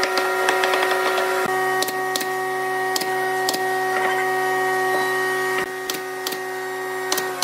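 Hammer tapping pine frame joints together in the first second or so, then single sharp shots of a pneumatic nail gun every second or so, over a steady whine with several tones.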